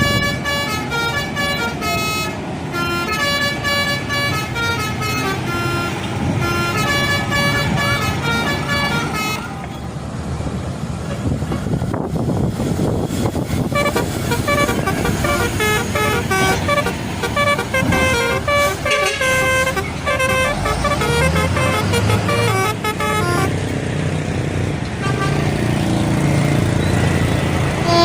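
Telolet horns on Indonesian buses, multi-tone musical air horns, playing quick stepping melodies note after note. The tunes run for about the first nine seconds, pause briefly, and start again at about fourteen seconds. A low rumble underneath grows stronger after about twenty seconds.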